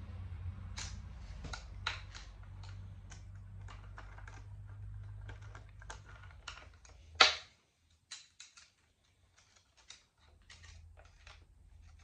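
Hand ratchet on a socket extension clicking in short, irregular runs while bolts are worked loose on an outboard powerhead, with one louder sharp metallic clack about seven seconds in.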